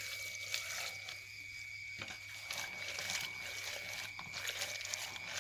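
Hands swishing and rubbing a bucketful of small shelled insects in water to wash them: uneven splashing and clicking of the shells against each other and the plastic bucket. A steady high-pitched tone runs underneath.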